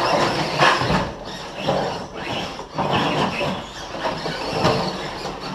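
Side-by-side off-road vehicle engines running and revving in uneven surges.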